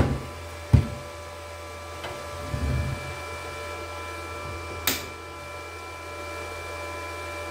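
Parkside PIFDS 120 A1 inverter flux-cored wire welder switched on and running, its cooling fan giving a steady hum and whine. A sharp knock comes under a second in as the unit is handled, and a click about five seconds in.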